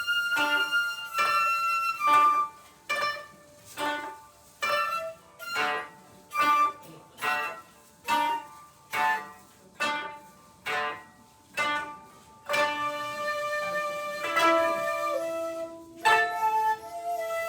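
Koto playing a steady run of plucked notes, about one a second, each ringing briefly. About twelve seconds in, a shakuhachi enters with long held notes over the plucking.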